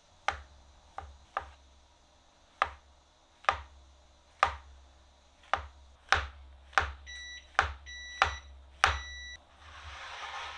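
A chef's knife slicing through mushrooms onto a plastic cutting board: about a dozen sharp clicks of the blade hitting the board, roughly one every half-second to second. In the second half an electronic device beeps three times, and near the end there is a short rustling noise.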